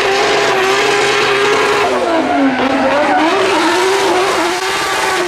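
Drift car's engine held at high revs as the car slides with its rear tyres spinning and smoking. The engine note dips about halfway through, then climbs back up.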